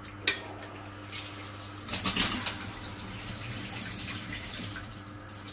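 Water being poured off from a bowl of ice water into a sink, a steady splashing pour that starts about two seconds in and eases off near the end. A sharp knock of bowl or utensil comes about a third of a second in.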